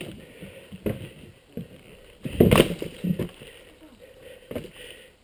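Footsteps and rustling in dry leaves and brush as a player moves and crouches into cover, in short irregular bursts, the loudest about two and a half seconds in.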